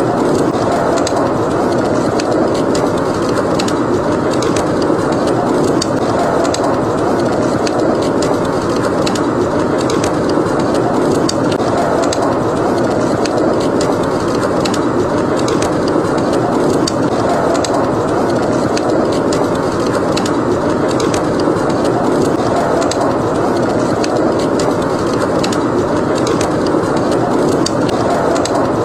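Howling snowstorm wind rushing steadily, with a wood fire crackling over it in frequent small pops.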